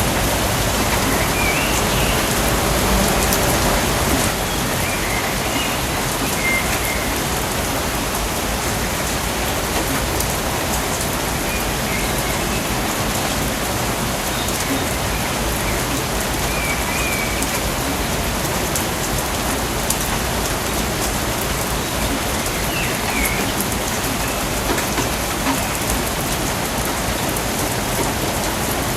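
Steady, even rain in a rainforest, dense and continuous, a little louder for the first few seconds. A few faint high chirps sound now and then over the rain.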